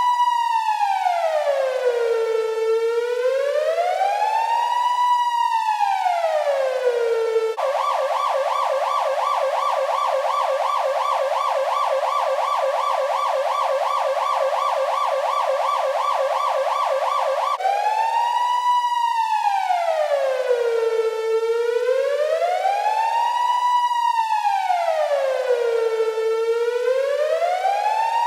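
Police siren sound effect: a slow wail rising and falling about once every five seconds. About seven seconds in it switches to a fast yelp of roughly four warbles a second for about ten seconds, then returns to the slow wail.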